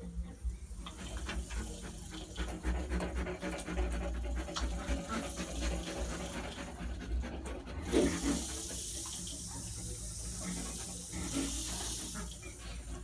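Porcupine eating close up: many small crunching clicks of its teeth gnawing food, with snuffling breaths over a low rumble.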